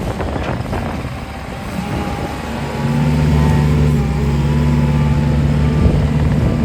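JCB 260T skid steer's diesel engine running, growing louder and settling into a steady hum about three seconds in.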